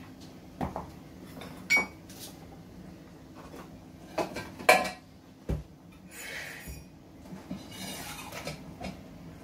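Metal pots, lid and bowls being handled: several sharp clinks and clanks with a brief ring, the loudest about five seconds in, then a dull knock and a short rustle.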